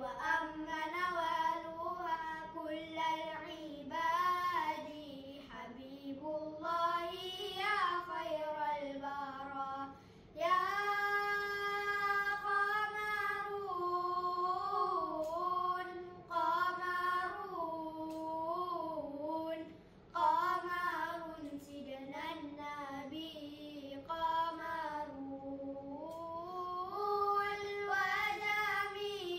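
Two boys singing selawat unaccompanied, in long ornamented melodic phrases with brief pauses for breath about ten and twenty seconds in.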